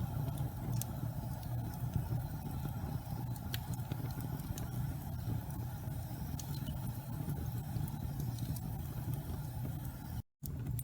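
Wood fire burning: a steady low rumble with scattered sharp crackles and pops. The sound drops out for a split second near the end.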